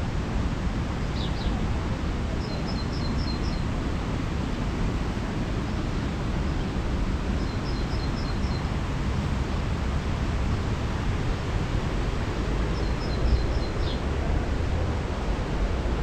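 Steady rushing outdoor noise, heaviest in the low end, with a small songbird repeating a quick run of high two-note chirps three times, a few seconds apart.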